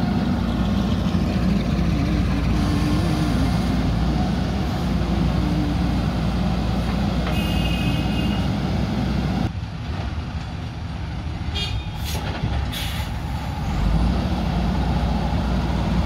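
JCB backhoe loader's diesel engine running under load as the backhoe arm digs, its pitch rising and falling with the hydraulics. There is a brief high squeal about halfway through. The level drops near ten seconds, and two short hisses follow a couple of seconds later.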